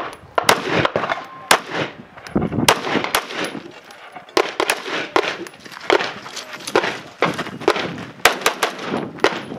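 Scoped AR-style semi-automatic rifle firing a long string of single shots, about two to three a second at an uneven pace, each crack followed by a short echo.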